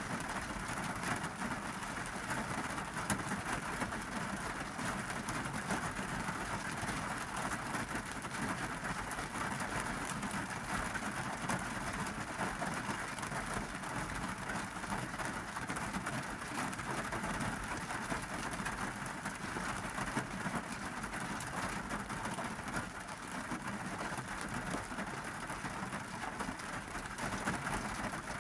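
Monsoon rain falling steadily on a car's roof and windows, heard from inside the cabin as an even patter without let-up.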